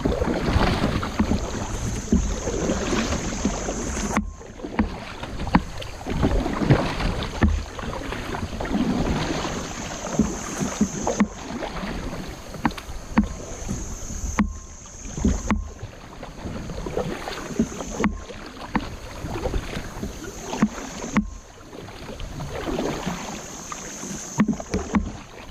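A kayak being paddled on creek water: paddle splashes and rushing water, with a low rumble of wind on the microphone. The sound breaks off abruptly several times.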